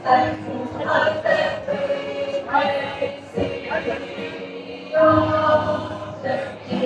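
Youth choir singing in harmony, holding sustained notes that change about every second.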